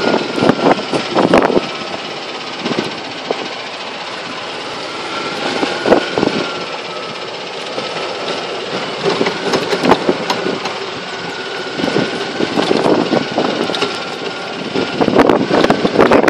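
Golf cart driving: a steady high motor whine that wavers a little, with the cart body rattling and knocking over bumps, loudest near the start and the end.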